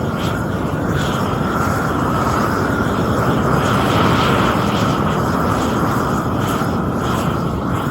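Propane gas torch burning with a steady, loud rush of flame as it chars the surface of a larch board.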